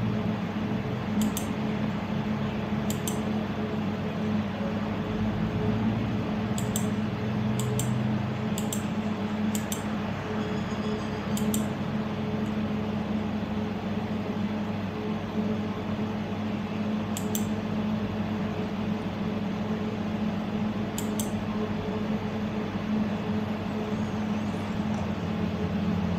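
Steady low hum with a constant low tone over a faint hiss, and a few faint high clicks.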